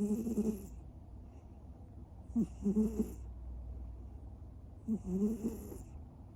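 American Shorthair cat snoring in its sleep: three snores in a steady rhythm, about two and a half seconds apart.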